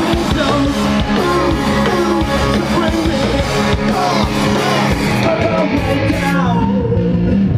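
A live rock trio playing loud: electric guitar, bass and drums, with the guitarist singing over them. The cymbal shimmer drops away about six and a half seconds in.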